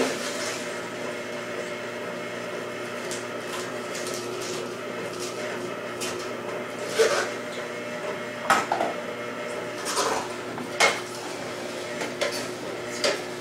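Green Star twin-gear juicer running with a steady hum as green leaf lettuce is fed into it. Sharp clacks come every second or so as the leaves are pushed down the chute with the plunger and crushed in the gears.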